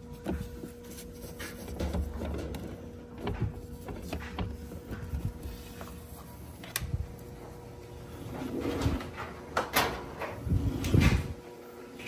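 Cable-pulling handling noise: a Cat 5e cable and its pull string rustling, scraping and knocking against the edges of a drywall hole as they are worked through by hand, with a heavier bump about 11 seconds in. Under it runs a faint steady hum from a clothes dryer.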